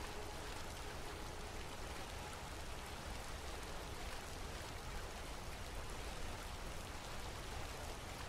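Steady, even hiss of recorded rainfall in a soundtrack, with no music over it.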